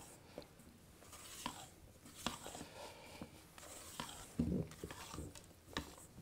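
Spatula folding thick chocolate cake batter in a stainless steel mixing bowl: faint scraping and soft working of the batter, with occasional light clicks of the spatula against the bowl.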